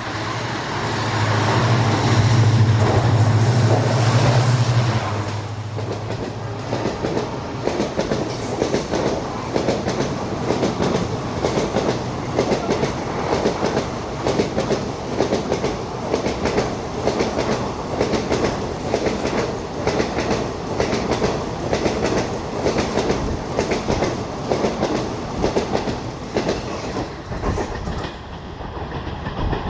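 WDP-4D diesel locomotive, with its EMD 16-cylinder two-stroke engine, passing at speed; its low engine drone is loudest in the first few seconds. Then the passing coaches' wheels clatter rhythmically over the rail joints.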